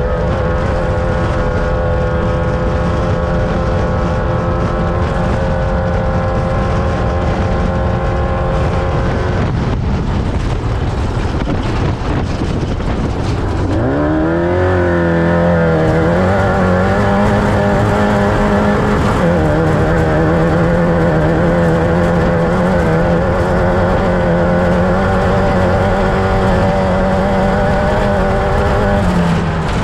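Off-road race vehicle's engine running at a steady pitch at speed, easing off after about nine seconds, then revving up sharply around fourteen seconds and holding at high revs, over constant noise.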